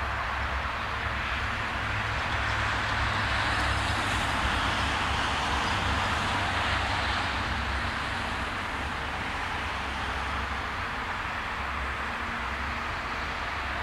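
Distant diesel-electric freight locomotive running as it approaches slowly: a steady low engine drone under a wash of noise, a little louder in the middle.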